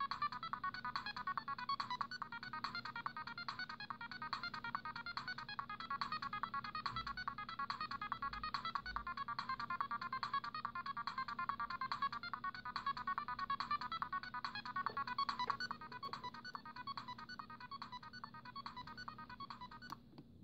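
Siemens C60 mobile phone playing one of its original ringtones: a fast run of short, bright beeping notes that stops abruptly near the end.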